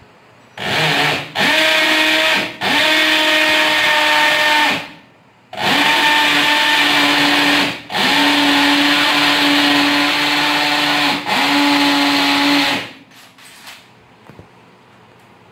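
Electric drill running in about six bursts of one to three seconds each, a steady whine with short gaps between, while a blind curtain is being mounted at a window frame.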